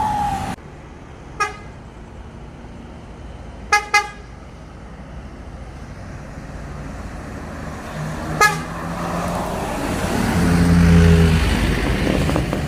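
Vehicle horn toots on a busy road: one short toot, then two in quick succession, then another. Near the end a tour bus's diesel engine grows loud as it passes close by.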